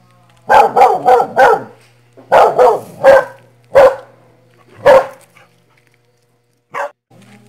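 A dog barking in quick runs: four barks close together, then three, then two single barks, and one last short bark near the end.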